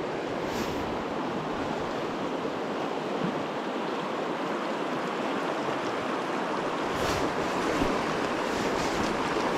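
Fast-flowing river water rushing steadily over a rocky bed, growing a little louder about seven seconds in.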